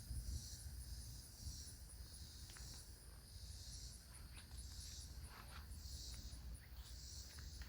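Insects calling outdoors in summer: a pulsing chorus about once a second, with a steady very high trill above it. A few short faint chirps come through partway in, over a low rumble.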